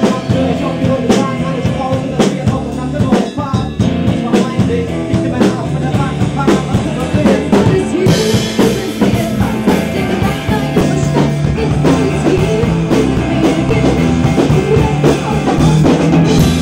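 A pop-rock band playing in a rehearsal room: a drum kit with cymbals keeps a steady beat under electric guitar, with a man singing into a microphone.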